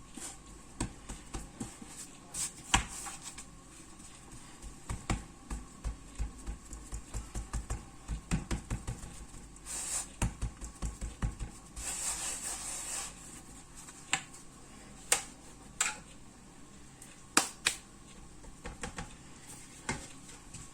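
Hands shaping small bread rolls from dough on a work surface: irregular light knocks and taps, with a run of soft thumps in the middle and a brief rustle about twelve seconds in.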